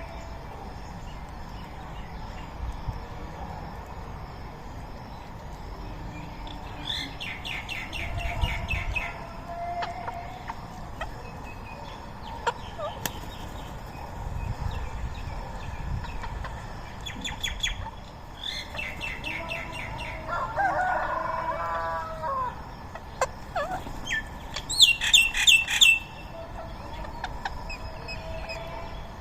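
Rose-ringed parakeets screeching in short bursts of rapid, harsh repeated notes, three main bursts with the loudest near the end. A lower, rippling call from another bird comes about two-thirds of the way through.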